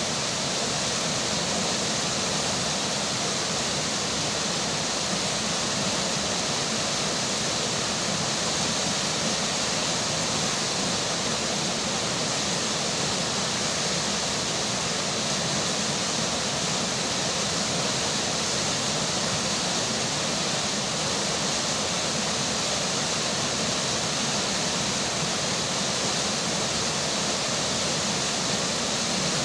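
Steady rushing of a flowing river with rain falling, an even constant noise with no distinct events.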